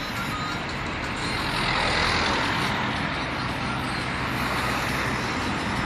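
Motor vehicle engine running steadily, with road noise swelling to its loudest about two seconds in.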